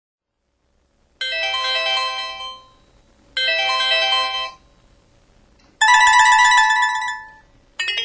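Built-in ringtones of an HS7000 mobile phone previewed one after another through its loudspeaker: two alike short chime-like clips about a second and a half each, then a different, brighter tone a little before six seconds that fades out, and another new melody starting just before the end.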